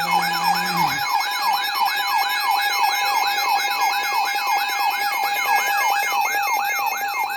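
Electronic siren-style alert tone, a fast rise-and-fall wail about three times a second over steady electronic tones, sounding with a broadcast emergency alert for a flash flood warning.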